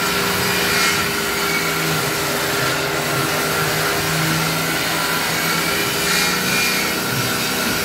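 A steady machine-like drone with a constant hum. Under it, a hand saw rasps back and forth through a softwood block.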